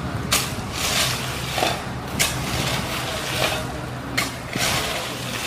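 Crushed stone gravel being scooped by hand and tipped into a plastic basket: sharp crunching rattles of stone about every two seconds, with scraping of gravel in between, over a steady low hum.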